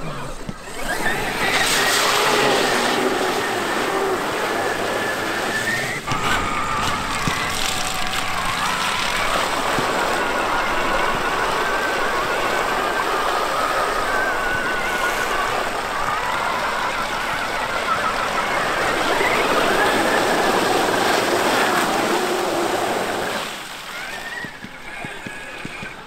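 Traxxas X-Maxx RC monster truck's brushless electric motor and drivetrain whining as it drives through mud and puddles, the pitch wavering with the throttle. It starts about a second in and dies away a couple of seconds before the end.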